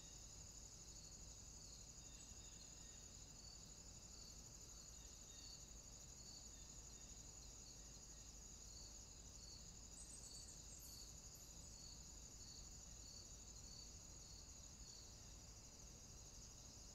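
Near silence: faint steady high-pitched background noise with a soft, even pulsing.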